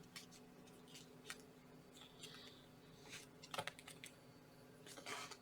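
Faint, scattered clicks and brief rustles of a foil trading-card pack being opened and its cards handled, a little busier towards the end.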